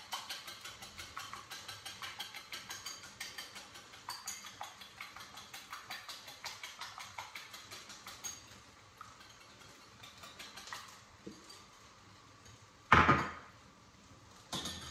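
Wire whisk beating eggs in a bowl, a quick even clicking of about four strokes a second that fades out about eight seconds in. Near the end comes one loud clunk, then a smaller one.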